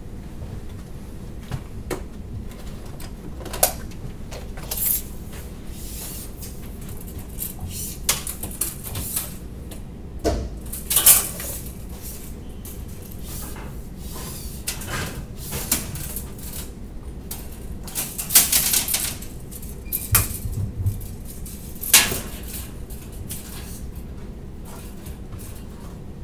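Scattered clinks, knocks and rustles of metal parts and tools being picked up and set down while a machine frame is assembled, over a steady low room hum.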